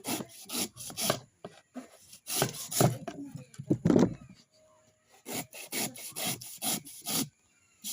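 Coconut being scraped by hand in quick, rough strokes, about three or four a second, coming in short runs with brief pauses between them.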